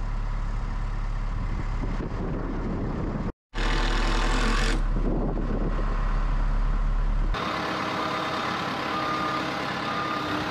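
Telehandler engine running steadily, heard across a couple of edit cuts. In the last few seconds its backup alarm sounds, short high beeps about once a second.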